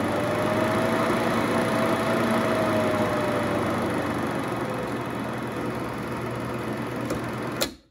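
Berkey Keystone Dual-8 film projector running with film threaded: a steady motor and film-transport whir, its pitch rising a little and then falling back as the speed control is turned. A click near the end as the main control knob is turned.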